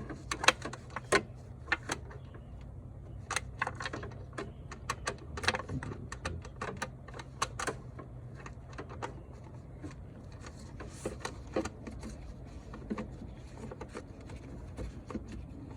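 Irregular metallic clicks and taps of a 12 mm socket on an extension knocking against a bolt head and the intake manifold as it is worked onto a hard-to-reach bolt, thicker in the first half and sparser later, over a low steady hum.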